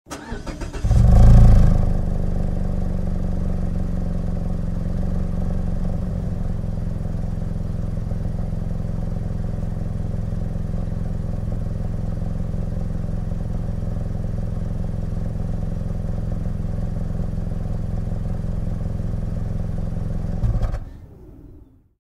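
Mazda CX-5 small SUV heard from outside at the rear: the starter cranks for about a second and the engine catches with a brief rev flare. It then settles into a steady idle, and near the end it is switched off and runs down to silence.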